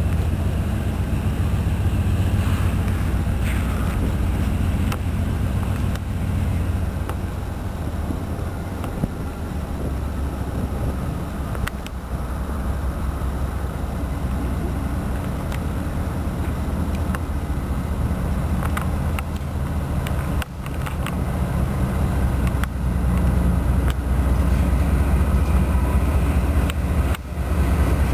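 Canadian Pacific diesel freight locomotives approaching, a steady low engine drone that grows louder about three-quarters of the way through.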